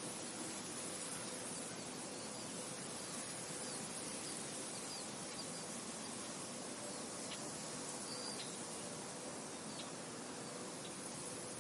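Wind blowing through a wheat field, a steady rustling hiss, with a few faint, short high chirps from small birds or insects, most of them in the second half.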